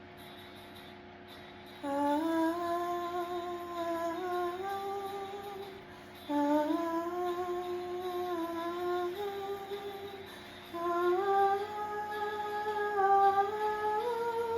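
A voice humming a slow melody in three phrases of about four seconds each, the first starting about two seconds in.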